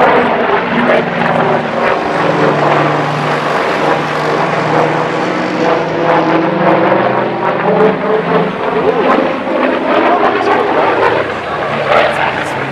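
Grumman F7F Tigercat's twin Pratt & Whitney R-2800 radial engines running at power during aerobatic manoeuvres, a steady propeller drone whose pitch shifts as the aircraft moves past.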